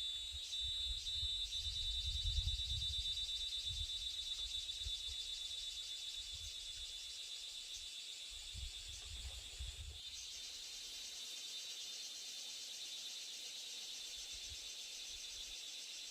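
Insects chirring steadily in a high, finely pulsing chorus. A low rumble comes and goes beneath it in the first few seconds and again about halfway through.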